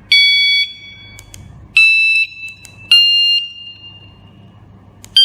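KS-SF22R vehicle security alarm unit sounding four short electronic tones, each at a different pitch. These are the notes of its do-re-mi scale, one for each of its seven sensitivity levels, played as it steps through them in sensitivity-setting mode.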